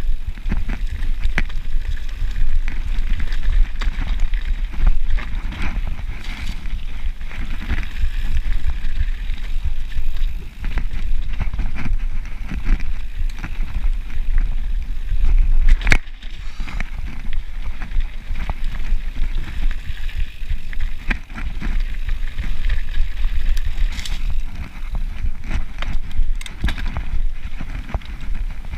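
Mountain bike riding fast down a dirt trail: tyres running over dirt and roots, with frequent rattling knocks from the bike and a hard knock about sixteen seconds in. Wind rumbles steadily on the microphone underneath.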